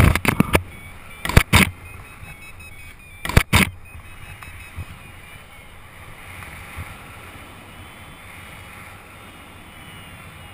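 Wind rushing over the microphone of a paraglider pilot's camera in flight, with several short loud blasts of buffeting in the first four seconds, then a steadier rush.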